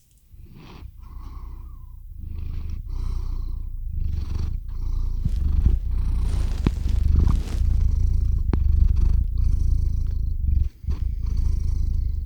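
Domestic cat purring right against the microphone: a deep, loud rumble that comes in a steady rhythm of breath-long pulses and grows louder about two seconds in, with a brief break near the end.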